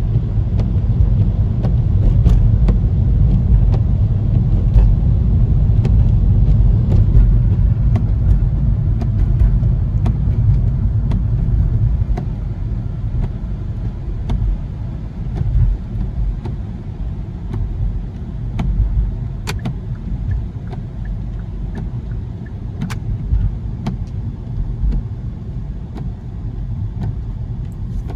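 A car driving: a steady low engine and road rumble, louder through the first dozen seconds and then easing off, with a few faint scattered clicks.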